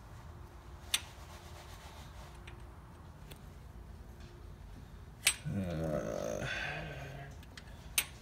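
A few sharp metallic clicks from the exposed rocker arms and pushrods of an MGB's B-series engine being handled by hand, with the engine not running. About five seconds in, a low, indistinct voice murmurs for about two seconds.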